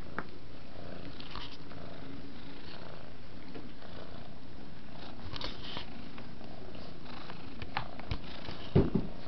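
Domestic cat purring steadily. There are scattered light clicks, and two dull thumps close together near the end.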